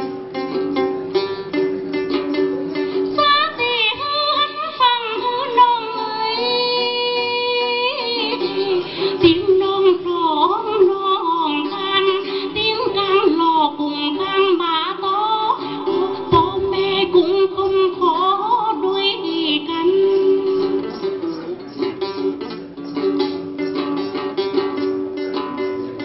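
Tày then folk music. A plucked string instrument is played in fast repeated strokes at the start and again near the end. Over the middle, a held melodic line slides and wavers in pitch.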